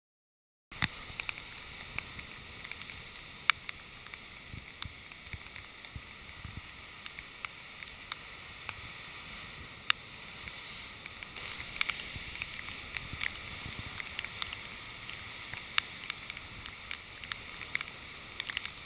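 Rough sea heard from a spray-wet action camera riding low on the water: a steady wash of water with frequent sharp ticks and knocks. It starts suddenly about a second in.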